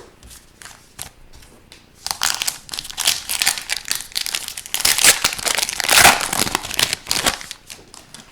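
Foil wrapper of a hockey card pack crinkling and tearing as it is handled and opened: a dense run of crackling from about two seconds in, loudest about five to six seconds in, easing off near the end.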